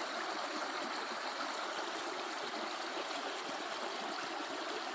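Small spring-fed creek flowing over rocks, a steady babbling trickle.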